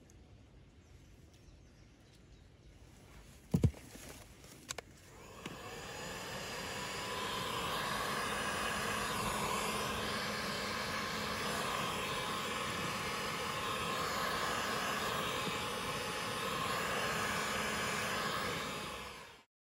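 Rapid R1800 hot air gun blowing on a wire splice: a couple of sharp clicks, then its fan spins up with a rising whine and runs steadily with a hiss of air, stopping abruptly near the end.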